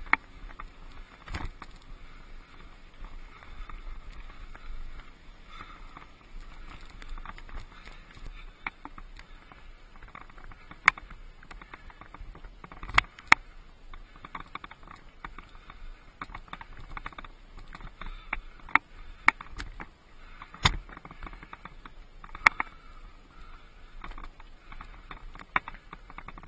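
Mountain bike rolling over a rocky dirt trail: a steady crunch and rush of tyres on gravel, broken by frequent sharp, irregular knocks and rattles as the bike hits stones and bumps.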